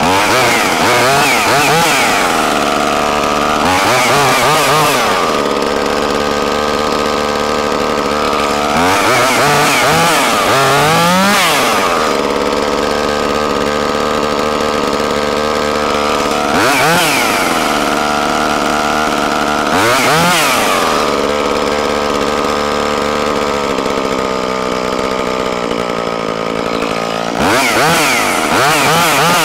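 Echo CS-2511T top-handle chainsaw's small two-stroke engine running at idle, with about six quick throttle blips that rev it up and let it fall back.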